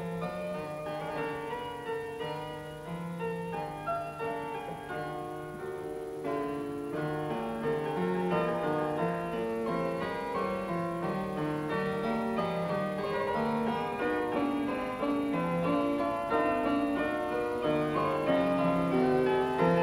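Background piano music, a steady run of notes that slowly grows louder.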